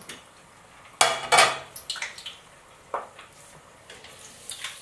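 A metal utensil clattering against a deep-fryer pot: a few sharp clinks, the loudest a double clatter about a second in. Hot oil sizzles faintly underneath.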